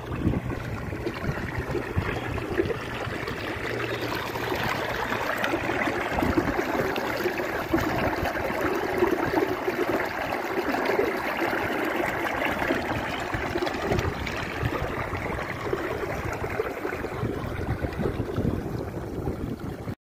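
Irrigation water gushing from a pipe outlet and splashing into a mud field channel, a steady rushing splash that cuts off suddenly at the very end.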